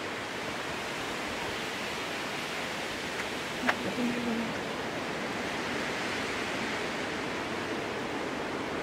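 Steady rushing noise of storm wind through the redwood forest, with one sharp snap about three and a half seconds in.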